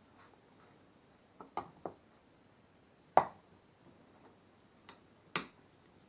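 Sharp clicks and knocks of distributor parts being fitted back together: three quick clicks about one and a half seconds in, a louder single knock around three seconds, and two more clicks near the end.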